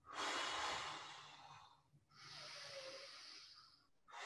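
A woman breathing hard during the Pilates Hundred: two long, airy breaths of about two seconds each, a third beginning just at the end.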